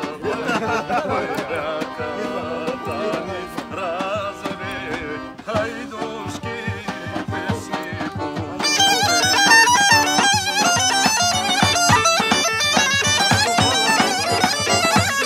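Live folk music on accordion and a wind instrument. About eight and a half seconds in, a bagpipe comes in and the music turns suddenly louder and brighter.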